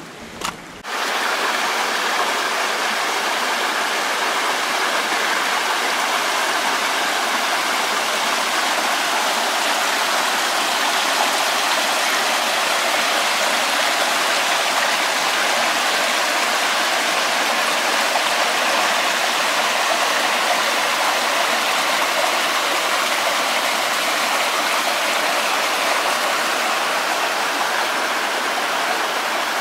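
Rushing water, a loud steady hiss that starts abruptly about a second in.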